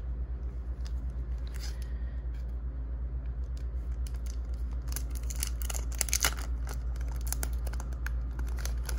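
A plastic trading-card pack wrapper crinkling and tearing as it is pulled open by hand. The crackles come scattered and are thickest about five to six and a half seconds in, over a steady low hum.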